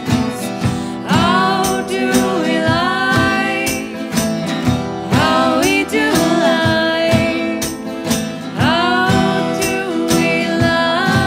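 Two women singing together over two strummed acoustic guitars: a live folk duo performance.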